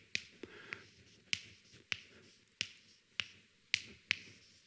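A series of about nine short, sharp clicks or taps, unevenly spaced roughly half a second apart.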